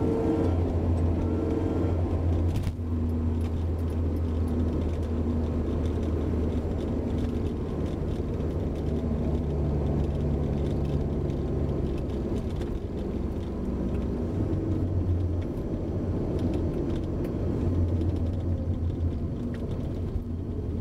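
Honda S2000 on the move: a steady low drivetrain and road rumble, with a faint pitched whine that comes and goes above it. The whine is the abnormal noise from the car's rear differential gears.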